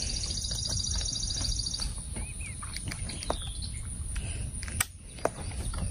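A single .30-06 rifle shot from a Mossberg Patriot bolt-action, sharp and brief, about five seconds in, with the recording dipping for a moment right after. Before it, birds chirp and a pulsing high buzz sounds in the background.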